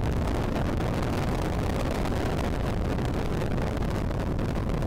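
Starship's Super Heavy booster firing its Raptor engines at ignition and liftoff, together with the pad's water deluge: a loud, steady, deep noise with no break.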